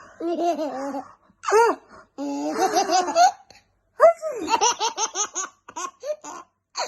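High-pitched laughter in several bouts, breaking into quick runs of short laughs, the loudest bout starting suddenly about four seconds in.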